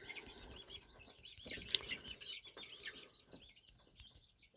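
Birds chirping in a rapid, faint background chorus, with one sharp click a little under two seconds in.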